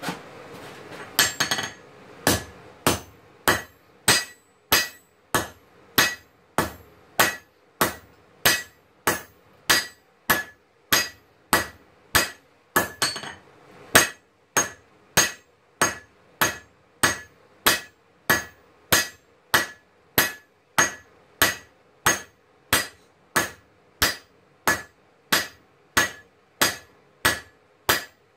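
Hand hammer forging a red-hot steel knife blank on an anvil: steady blows a little over one a second, each with a bright metallic ring, with a short flurry of quicker hits near the start and again about halfway.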